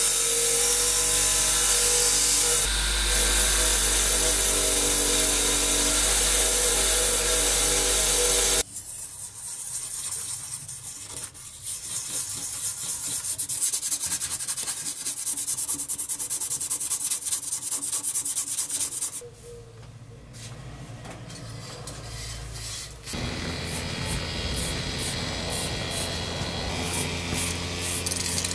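Bench grinder running with a steel billhook blade held against its wheel, a steady grinding whine that cuts off suddenly about nine seconds in. Then a quieter back-and-forth scraping as the blade is rubbed down by hand, followed near the end by a fast run of light clicks.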